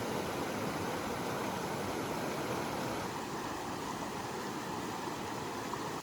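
Steady rush of running water, cutting off suddenly at the end.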